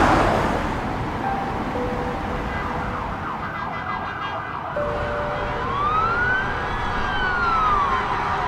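Emergency vehicle siren over traffic noise. The siren first sounds as a fast repeating yelp, then about six seconds in it switches to one slow wail that rises and falls. A car passes at the start.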